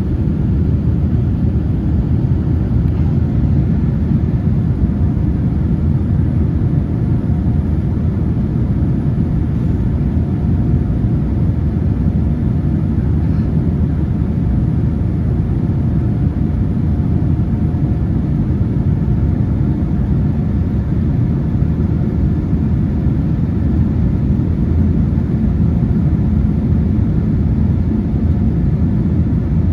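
Airliner cabin noise: a steady low rumble of the jet engines and rushing air, with a faint steady hum above it.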